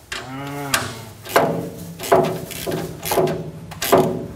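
Repeated knocks and clicks, about one to two a second, from parts being fitted by hand inside a steel upper wall cabinet, each with a short ring.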